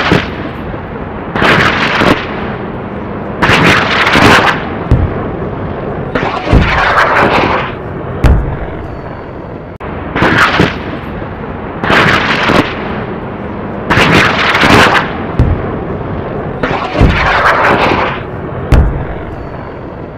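A series of loud booms, each with a rushing swell of noise and some with a deep thud, coming about every one and a half to two seconds over a steady noisy bed, like gunfire or explosion sound effects.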